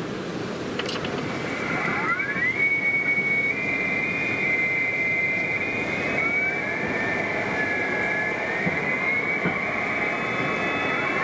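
High electric-motor whine: it glides up in pitch about two seconds in and holds. It sags and climbs again later, then rises once more near the end, over a steady bed of low noise.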